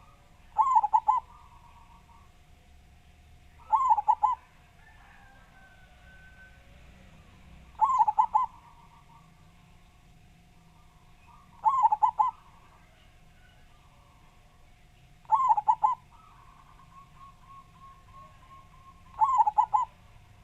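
Zebra dove (perkutut) cooing: six loud, short, rolling phrases of quick notes, one about every four seconds, with fainter coos between them.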